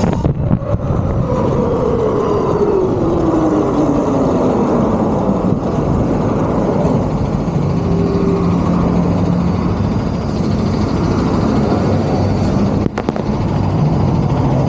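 Electric dirt bike motor whine falling steadily in pitch as the bike slows, over wind and road noise. Then the low steady hum of idling truck engines while the bike is stopped in traffic.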